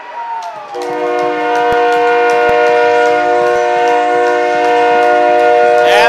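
Arena goal horn blowing a loud, steady chord of several notes, like a train horn, signalling a home-team goal. A few claps and cheers sound under it.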